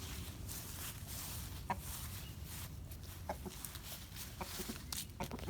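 Backyard chickens clucking: a handful of short, separate clucks over a low rumble and scattered rustling.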